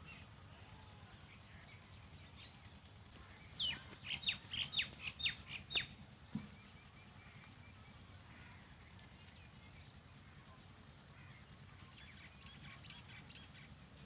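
A bird calling a quick series of about seven sharp, down-slurred chirps for about two seconds, starting a few seconds in, over a steady low background hum. Fainter chirps come near the end.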